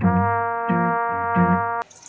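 Background music: a long held chord over short repeated bass notes, stopping abruptly near the end.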